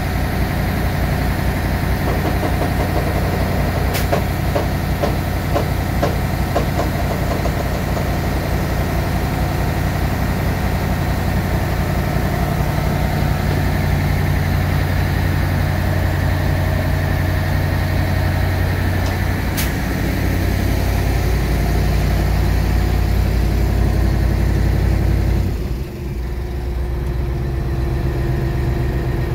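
Wirtgen W1900 cold milling machine's diesel engine running steadily. About four seconds before the end the sound drops suddenly and settles into a lower, changed drone.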